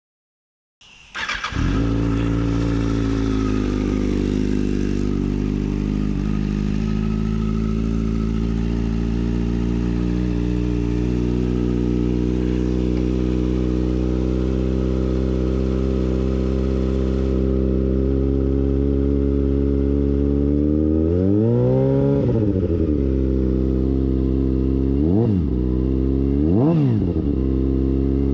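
Kawasaki ZX-6R 636 inline-four sport-bike engine starting up about a second in and idling steadily. About 21 seconds in the throttle is revved once, and two short blips follow near the end.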